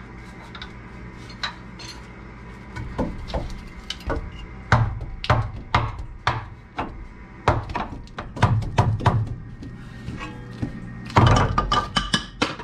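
Rubber mallet striking a greased bump stop cup extension, driving the tight-fitting part into the rear bump stop cup. Irregular knocks come from about three seconds in, then a quick flurry of blows near the end.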